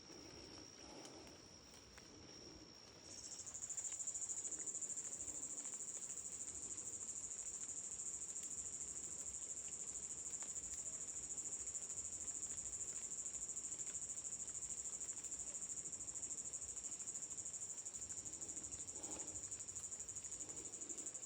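Insects trilling steadily at a high pitch; a second, louder and higher-pitched trill starts about three seconds in and carries on.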